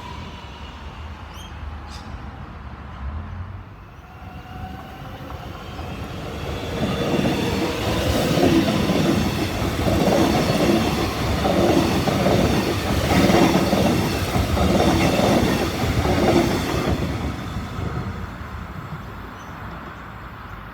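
X'Trapolis electric suburban train running past: a rhythmic clatter of wheels over the rails builds up about a third of the way in, stays loud for about ten seconds, then fades away. A faint whine sounds in the first few seconds.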